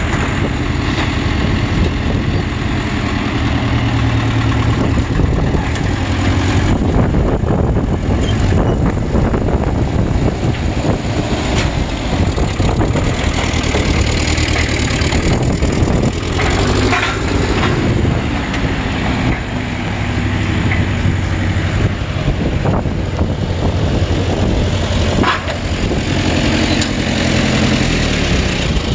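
Engine of an old tractor-based forklift running close up, its speed rising and falling as it works, with a few sharp knocks along the way.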